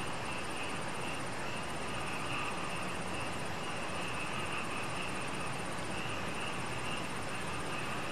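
Night insects calling: a very high, rapidly pulsing trill that comes in stretches with short breaks, over a steady shrill buzz and hiss.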